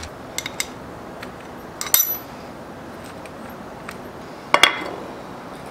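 Small steel parts clinking against the Atlas lathe's change gears as they are handled: a few light taps near the start, a sharp clink with a short ring about two seconds in, and the loudest ringing clink a little after four and a half seconds.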